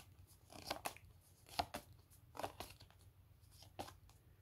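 Stiff paper flashcards slid one by one off the top of a stack, a soft papery swipe roughly every second.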